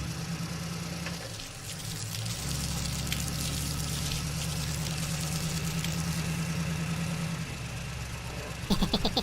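Vehicle engine idling with a steady low pulse, getting louder about two and a half seconds in and easing off near the end, where a quick run of higher pitched notes starts.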